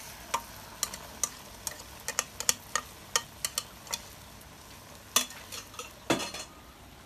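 Mashed purple yam paste hitting a wok of hot peanut oil, sizzling, with many short sharp pops of spattering oil, about one or two a second. Two louder sharp sounds come about five and six seconds in.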